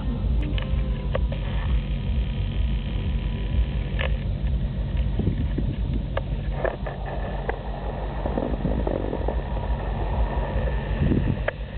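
Strong wind buffeting the microphone with a heavy, steady low rumble, with a violin played faintly underneath.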